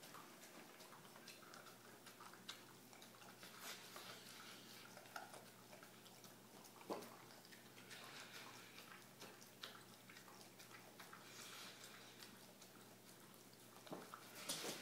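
Dog eating from a metal bowl through a mesh muzzle: faint, irregular clicks and ticks of the muzzle and food against the bowl, with a few louder knocks about halfway and near the end.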